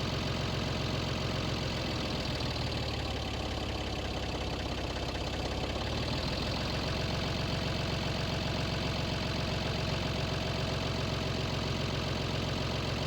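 Tractor engine running steadily, its note shifting for a few seconds about two seconds in as the loader lifts the heavy furnace.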